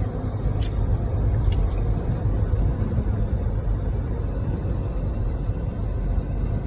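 Steady low rumble of a car driving, road and engine noise, with two faint clicks in the first two seconds.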